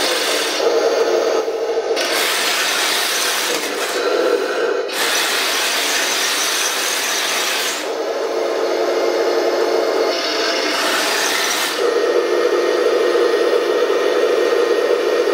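Radio-controlled full-metal model Abrams tank driving and pivoting: its drive motors and gearboxes whir and its metal tracks grind on the wooden floor in about three spells, over a steady hum.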